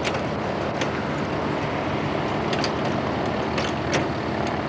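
A handful of short metallic clicks as the latches on a Piper Cherokee's engine cowling are worked closed by hand, over a steady background rumble.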